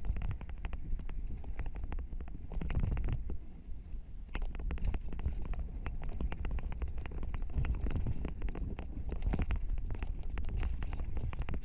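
Mountain bike descending a rough dirt trail, heard through a helmet-mounted camera: a steady low rumble of wind and tyres with a constant clatter of small knocks and rattles. The rattle is typical of the Fox Proframe RS helmet and its visor-mounted GoPro, which the rider says rattles like crazy.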